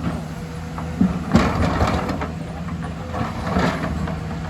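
Excavator's diesel engine running steadily. A few louder knocks and rattles come about a second in and again past three seconds.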